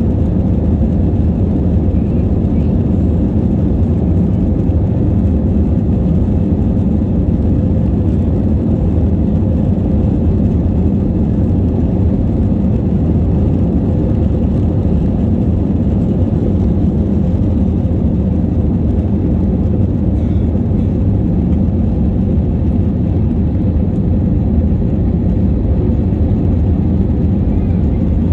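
Airbus A321 cabin noise in the climb just after takeoff: the jet engines at climb power and the airflow past the fuselage make a loud, steady, low rumble.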